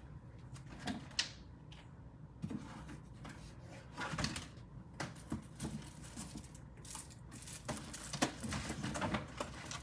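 Faint scattered clicks and small handling knocks at irregular intervals, heaviest around the middle and near the end.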